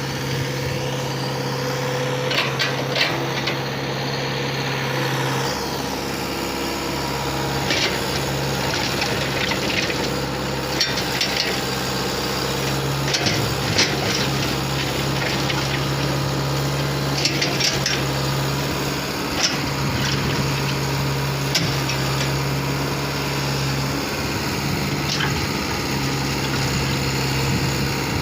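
Diesel engine of a construction machine running steadily under work, with scattered sharp clanks and rattles from the working machine.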